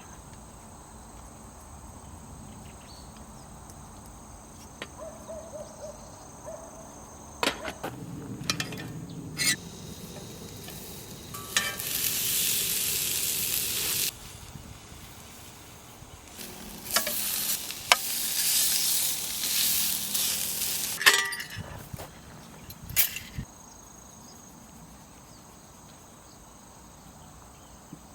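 Camp cooking: two spells of loud sizzling, the first cut off sharply, with scattered clicks and clinks of utensils. Crickets chirp steadily underneath.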